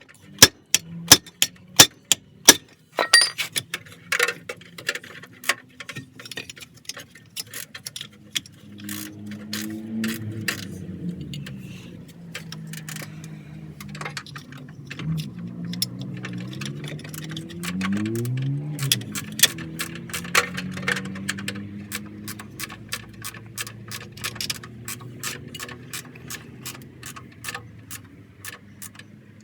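Sharp, irregular metallic clicks and clinks, loudest and sparsest in the first few seconds, then thicker. From about eight seconds in, a low hum joins them, gliding up and down in pitch.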